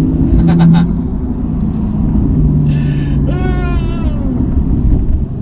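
Porsche 911 Carrera GTS (991.2) twin-turbocharged flat-six engine pulling hard under acceleration, a deep rumble heard from inside the cabin, with a slight lag before it picks up. A voice lets out a falling exclamation about halfway through.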